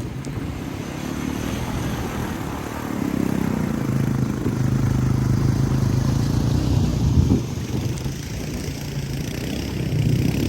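Honda ATV engine running under throttle with a steady pitch, getting louder for a few seconds in the middle and then easing off.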